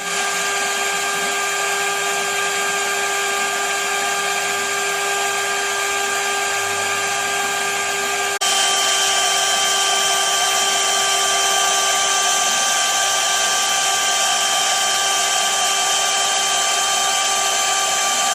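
CNC milling machine spindle running steadily with a high whine made of several constant tones over a hiss. About eight seconds in it abruptly gets louder and a higher tone joins.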